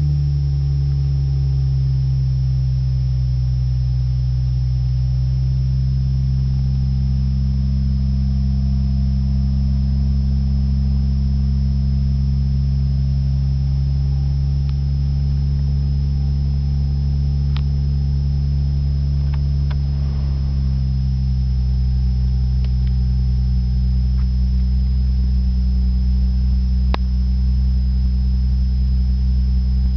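Turbocharged Lexus IS300's 2JZ-GE inline-six idling steadily just after a cold start, heard from inside the cabin. Its idle speed drops slightly about two-thirds of the way through as the cold-start idle settles.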